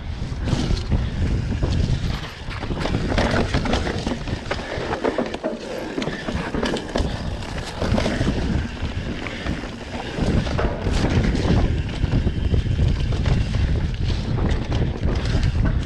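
Dirt bike engine running on the move, its level rising and falling, with wind buffeting the microphone.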